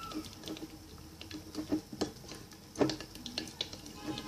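Plastic spoon stirring and scraping a thick glue-and-water slime base in a container, with irregular light clicks and taps and a couple of louder knocks against the container.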